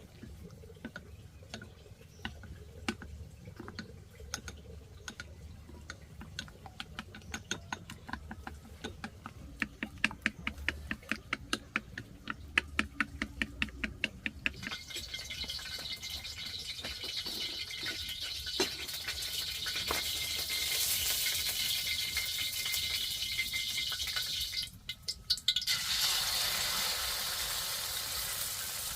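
Quick regular clicking strokes of kitchen work, then from about halfway a steady sizzle of food frying in hot oil, cut off briefly near the end before it resumes.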